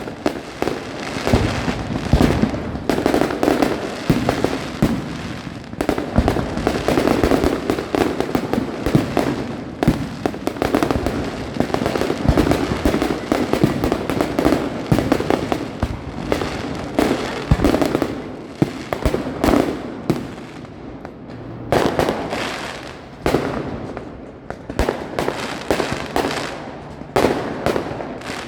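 Fireworks display: a dense, continuous barrage of aerial shell bursts and crackling, with many bangs a second and a brief lull around two thirds of the way through.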